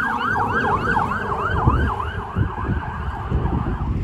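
Fire engine siren in a fast yelp, its pitch sweeping up and down about three to four times a second and weakening near the end, over low traffic and wind rumble.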